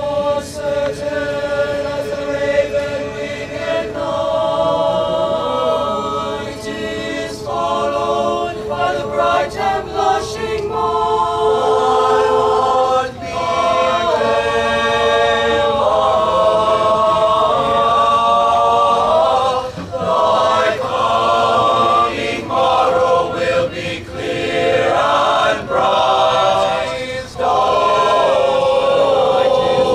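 Mixed-voice high school choir singing a cappella in sustained harmony, phrase after phrase with brief breaths between.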